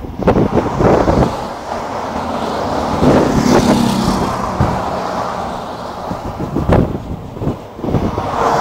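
Motorway traffic: a van and several cars passing at speed, their tyre and engine noise swelling as each goes by. It is loudest about three to four seconds in.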